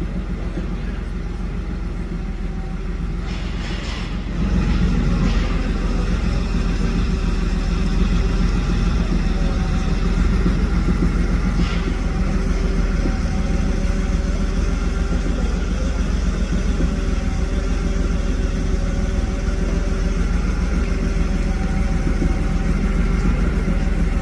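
A car engine idling close by, a steady low rumble that gets louder about four seconds in.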